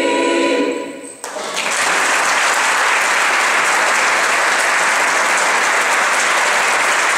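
A mixed choir holds its final chord, which fades and is cut off about a second in, followed by steady audience applause.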